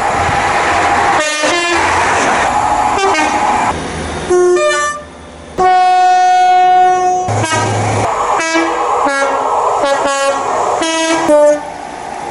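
Two-tone train horns sounding in a series of short blasts that alternate between a low and a high note. A longer blast is held for about a second and a half around the middle. The rumble of a running train sits underneath.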